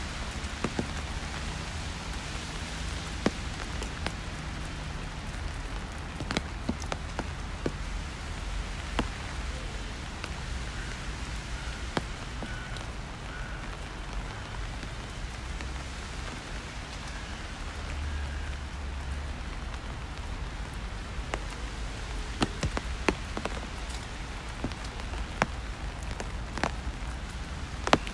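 Steady rain falling, with frequent sharp taps of drops landing close by and a low rumble underneath.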